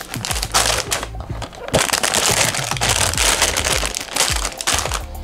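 Thin clear plastic bags around plastic model-kit parts runners crinkling as the bagged runners are handled and lifted out of the cardboard box. There is a short lull about a second in.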